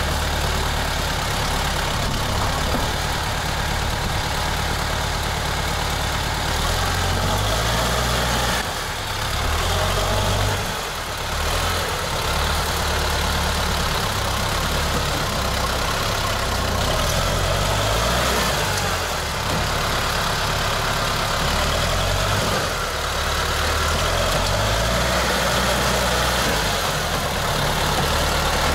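T-40 tractor's diesel engine running as it is driven, its low note stepping up and down with throttle and load, over a steady hiss. It briefly drops in loudness twice, about nine and eleven seconds in.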